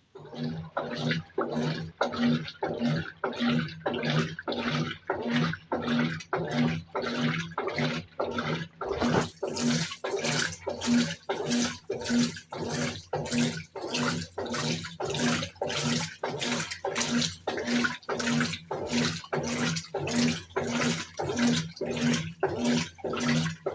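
Brastemp 17 kg top-load washing machine agitating a load on turbo agitation: the motor hums with each back-and-forth stroke, about two to three strokes a second, and the water churns and splashes in the tub. The agitation starts at the very beginning after a brief pause.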